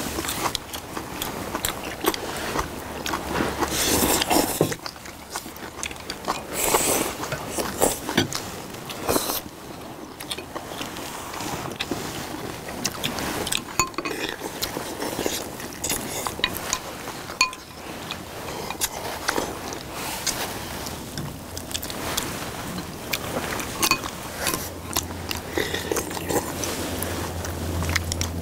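People eating close to the microphone: chewing, with chopsticks and a spoon clicking and scraping against ceramic bowls in irregular short clicks.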